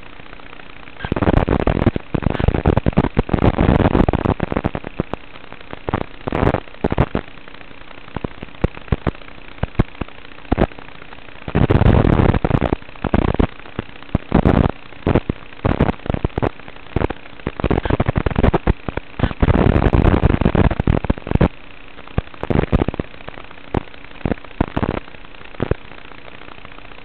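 Crackling, popping bursts of static from an analog FPV video link's audio channel, coming in irregular clusters over a faint steady hum.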